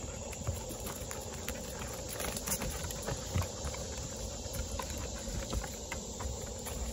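Footsteps of a walker and two dogs on a wooden boardwalk: a run of irregular knocks and clicks from shoes and paws on the planks.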